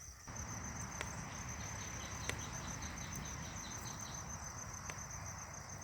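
Crickets chirping steadily in a fast, high-pitched trill, with a few scattered sharp clicks.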